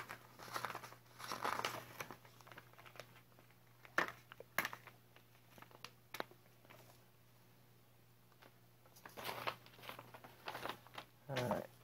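A sheet of scrap paper crinkling and rustling as it is handled and folded, with a few light ticks. The sound comes in short scattered spells with a quieter stretch in the middle.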